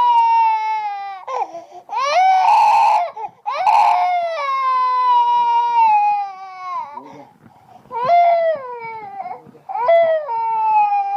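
A baby crying in a run of long, drawn-out wails, each one sliding slowly down in pitch, with short breaths between. The cry turns harsh and raspy about two seconds in.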